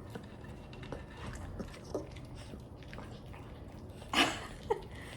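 Dog eating chicken offered by hand, with small clicks and smacks, then about four seconds in a sharp noisy huff followed by a brief whine.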